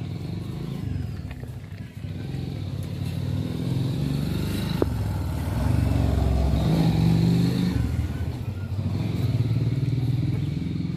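An engine running steadily nearby, a low pitched hum that grows louder about halfway through and eases off again near the end, with a single sharp click just before the middle.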